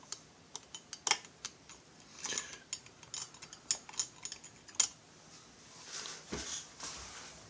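Irregular light metallic clicks and ticks of a screwdriver turning a cylinder base screw on a FarmerTec MS440-clone chainsaw, the tool working against the screw head and threads. The sharpest clicks come about a second in and near five seconds in.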